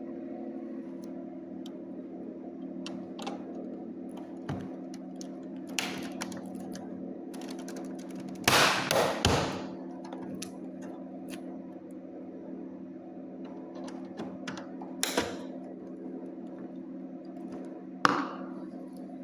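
Clicks, taps and knocks of hand tools and plastic casing being handled, loudest in a short clatter about halfway through and in single knocks later, over a steady low hum.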